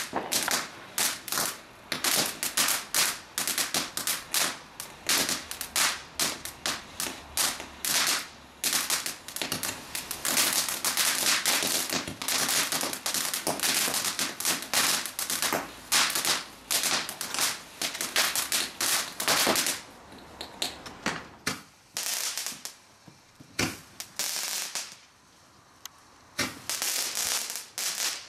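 Fireworks going off in a rapid, dense run of sharp cracks and bangs. The run thins out after about twenty seconds, leaving only scattered pops near the end.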